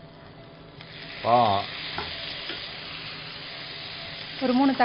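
Chopped onions and tomatoes sizzling in a frying pan as they are sautéed and stirred with a wooden spatula. The sizzle rises about a second in and then holds steady.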